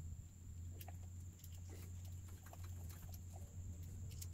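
Faint, scattered clicks and taps of a motorcycle's plastic handlebar switch housing being handled and fitted around the bar, over a steady low hum.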